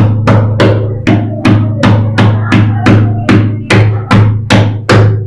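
A hammer striking a metal L-shaped geyser mounting hook, driving it into a plugged hole in a tiled wall: steady blows, about two and a half a second, each ringing briefly.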